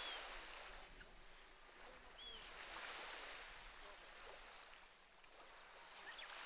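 Faint sea waves washing gently on the shore, each swell rising and fading about every three to four seconds.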